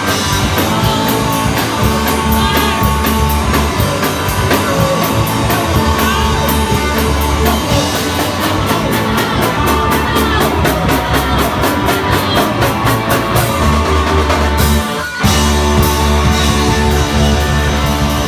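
Live rock band playing loud: electric guitars over a drum kit with fast, even cymbal hits, with a brief stop about fifteen seconds in before the band crashes back in.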